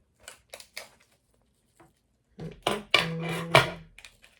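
Scissors snipping the plastic packaging off a doll: a few short clicks, then about two seconds in a louder stretch of rustling and clattering handling noise that dies away before the end.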